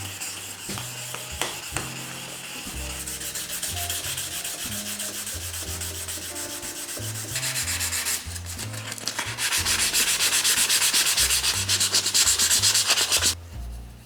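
Abrasive rubbing on an aluminium Nitro Racing silencer as its scratched surface is worked down for polishing: a rasping hiss made of many fast, fine strokes. It grows louder about two-thirds of the way through and stops abruptly near the end.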